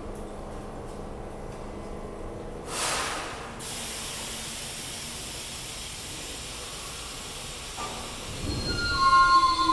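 Stopped R68-series subway train idling with a steady hum; about three seconds in, a short loud burst of air hiss. Near the end a train starts moving, a rumble builds and steel wheels begin squealing in high tones.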